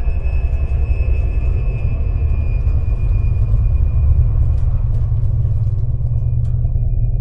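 Electric meat mincer running steadily while it extrudes minced meat: a deep, constant motor hum with a faint higher whine. The higher part of the sound drops away shortly before the end.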